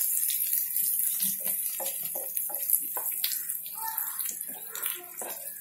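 Shrimp sizzling as they fry in ghee and garlic in a non-stick pan, a steady hiss with a wooden spatula scraping and clicking against the pan as they are stirred, the sign of them crisping in hot fat.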